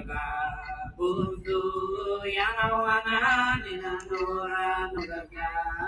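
A man's voice singing a chant in long held notes, breaking off and starting again every second or so.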